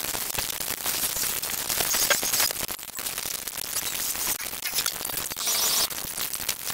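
Cartoon soundtrack sped up dozens of times over, its dialogue, music and effects squeezed into a steady, high-pitched hissing chatter like static.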